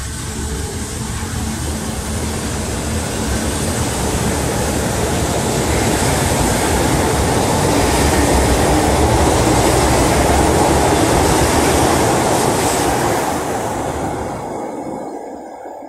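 Alstom Frota E metro train pulling out and running along the track: a steady sound of wheels on rails that builds up, is loudest from about halfway to three-quarters through, then fades quickly as the train draws away near the end.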